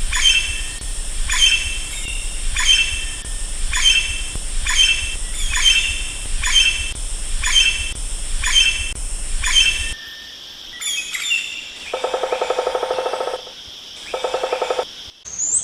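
A woodpecker, likely the Andaman woodpecker, calling in a steady series of sharp, downward-sliding notes about two a second over a constant high insect drone. After a break, a fast buzzing rattle comes twice.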